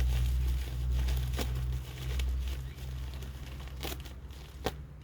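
Packaging crinkling and tearing as it is cut open with a blunt blade. A low rumble runs through the first half, and a few sharp clicks come near the end.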